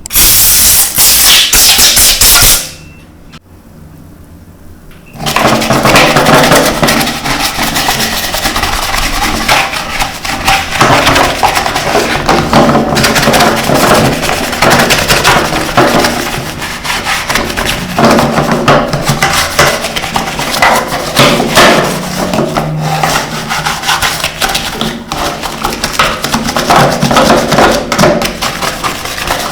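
Hands-on cleaning of a toy car: a hiss of spraying for about two and a half seconds, then, after a short pause, continuous scrubbing with many small knocks and clicks.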